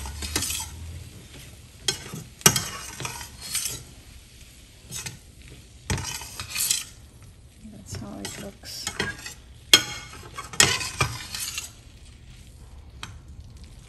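A slotted spatula scraping and clinking against a stainless steel frying pan as chicken and bell peppers are tossed, with the food sizzling. The scrapes come in irregular strokes, with a few sharp clinks.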